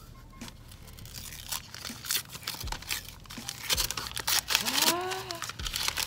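Brown paper gift wrapping being torn and crumpled open by hand: a run of rips and crinkles that grows busier and louder over the last few seconds. A brief rising-then-falling vocal 'ooh' comes about five seconds in.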